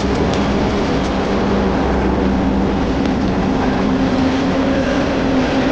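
Train passing close by: diesel locomotive engines running with a steady hum over the continuous rumble of rolling cars on the rails.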